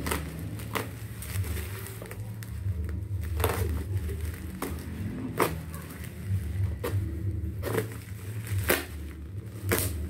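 Black plastic bubble-wrap mailer and packing tape crinkling and tearing as they are slit with a folding knife and pulled open by hand: irregular sharp crackles every second or so, over a steady low hum.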